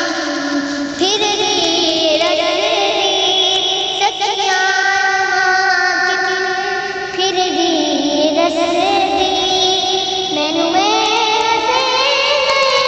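Music: a naat sung by a young voice, with long held notes over a layered vocal backing.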